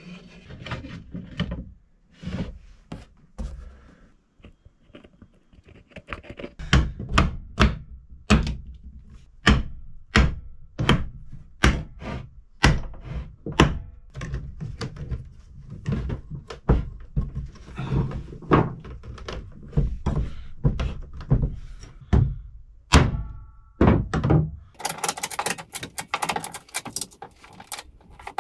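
A series of hard wooden knocks, about one or two a second, as the glued oak pew panel pieces are worked together on the bench, then a fast run of ratchet clicks near the end as a ratchet strap is tightened round the panel.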